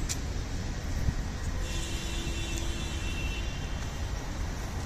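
City street traffic noise, a steady rumble, with a faint whine coming in for about two seconds in the middle.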